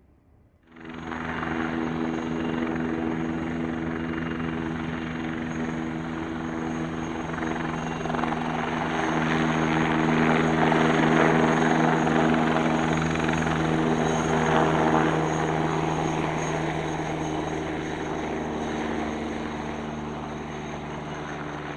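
Eurocopter Tiger attack helicopter flying close by: steady rotor and twin-turboshaft engine sound with a high turbine whine. It cuts in abruptly about a second in, is loudest around the middle and eases slightly near the end.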